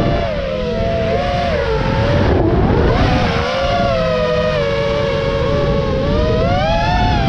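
FPV racing quadcopter's brushless motors and propellers whining as it flies, the pitch sagging about two and a half seconds in and climbing again near the end as the throttle changes. A rushing wind noise runs underneath.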